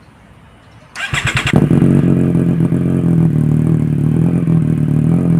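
Triumph Street Triple's three-cylinder engine being started: about a second in the starter cranks briefly, the engine catches, and it settles into a steady idle.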